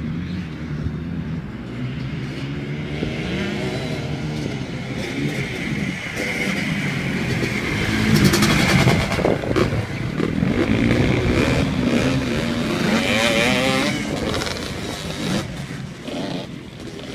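Quad bike (ATV) engines revving and accelerating, the pitch rising and falling repeatedly, loudest about eight seconds in.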